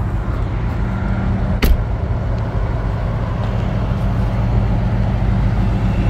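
A vehicle engine running with a steady low hum, and a single sharp clack about a second and a half in.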